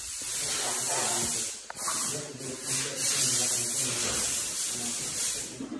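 Loud, steady hiss of spray or escaping air, breaking off briefly a couple of times.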